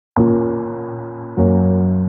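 Background music: soft electric piano playing held chords, with a new chord coming in a little over a second in.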